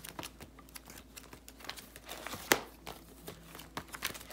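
Plastic photocard binder pages and sleeves crinkling and rustling as they are handled, with one sharp click about two and a half seconds in.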